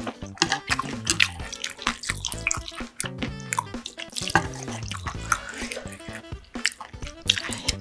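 Wooden chopsticks stirring and lifting ramen noodles out of a metal pot of broth, with repeated clicks and knocks against the pot and the wet sloshing of noodles and soup.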